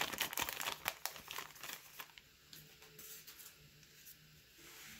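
Crinkling of a baseball card pack wrapper as it is peeled open and pulled off the stack of cards, a dense crackle for about two seconds that then fades to quieter handling.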